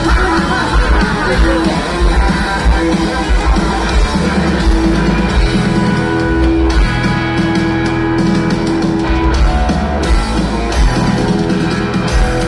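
Punk rock band playing live through a PA: electric guitars and drum kit, heard from within the crowd.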